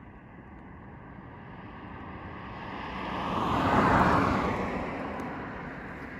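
A car passing close by at road speed: its tyre noise swells to a peak about four seconds in, then fades away.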